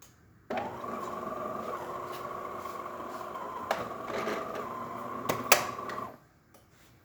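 DeLonghi Magnifica XS espresso machine running internally: a steady mechanical whir with a held tone starts suddenly about half a second in and cuts off about six seconds in, with a few clicks near the end.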